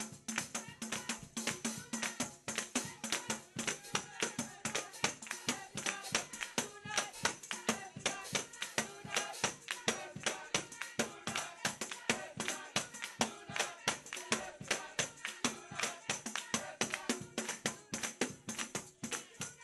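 Tambourine beaten in a fast, even rhythm of about four to five strokes a second, its jingles ringing high, over faint church praise music.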